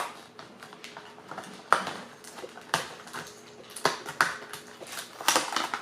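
Scattered clicks, taps and crinkles of small tools and their plastic packaging being handled while they are unpacked: an Allen key and a small screwdriver from the phone case's box. There are about half a dozen sharp taps, with a quick cluster near the end.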